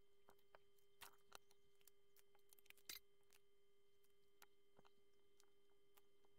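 Faint scattered clicks and taps of Lego pieces being handled and set down, the loudest about three seconds in, over a steady faint hum.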